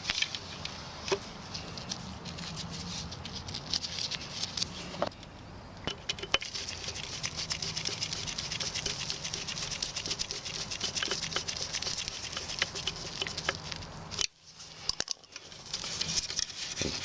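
Rapid, irregular faint clicks and taps of hands working small parts, as the new H3 halogen bulb is seated in the fog light housing and its retaining screw is put in, over a steady low hum. The sound drops out briefly near the end.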